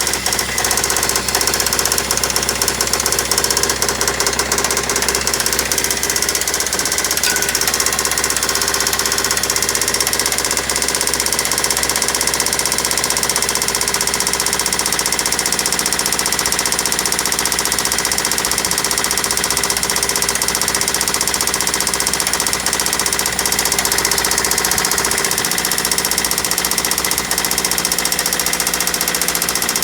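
Toyota Celica's replacement JDM engine running with a loud, rapid, steady knock. The owner was told the knock might be carbon buildup on top of the cylinder that could clear after about ten minutes of running.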